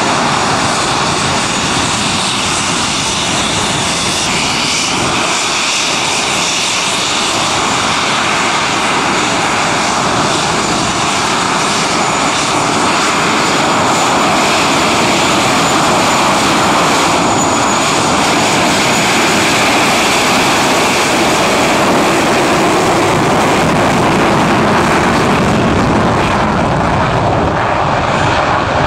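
English Electric Lightning's twin Rolls-Royce Avon turbojets running loud and steady while the jet taxis, with a thin high whine over the roar. The sound grows a little louder from about halfway through, and the whine fades out after that.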